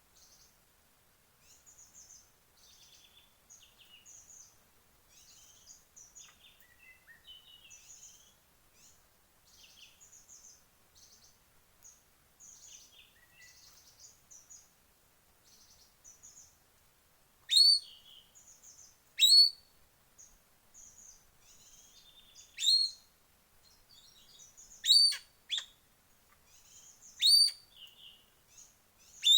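Forest birds chirping, with many small high calls. From about halfway through, a much louder, sharp sweeping call repeats every two to three seconds.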